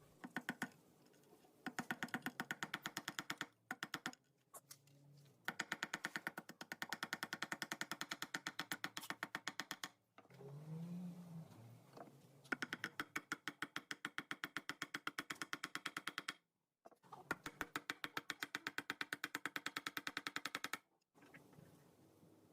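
Rapid, evenly spaced clicking, about five or six clicks a second, in several runs of a few seconds each with short pauses between.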